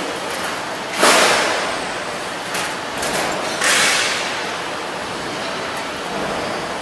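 HVAC duct production line machinery running with a steady machine noise, broken by two sudden loud bursts about two and a half seconds apart, each fading over about a second.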